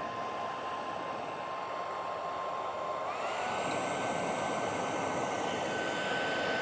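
Hairdryer blowing air into forge coals to fan the fire: a steady rush of air with a motor whine that steps up in pitch about three seconds in.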